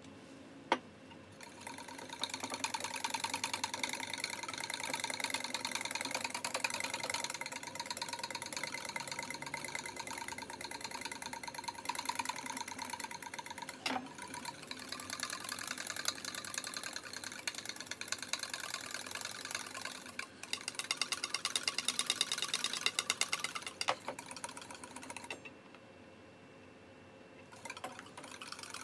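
Wire whisk beating egg yolk and oil in a stainless steel bowl to emulsify it into mayonnaise: a fast, steady, rhythmic rattle of wire against metal. A single sharp knock comes about a second in, and the whisking pauses for a couple of seconds near the end before starting again.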